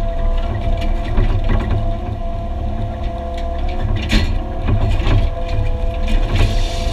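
Excavator engine running steadily with a constant whine, while knocks, clanks and scrapes come irregularly as the bucket works broken concrete; one sharp crack stands out about four seconds in.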